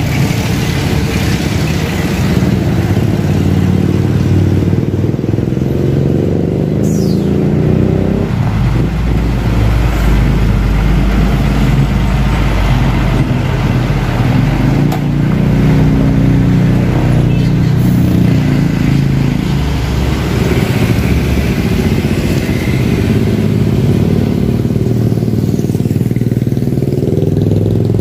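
Hino FM 260 dump trucks' six-cylinder diesel engines running loudly as the heavy trucks pass close at low speed, with motorcycle engines passing among them. The deep rumble is strongest from about eight to fourteen seconds in, and a brief high falling squeal comes around seven seconds in.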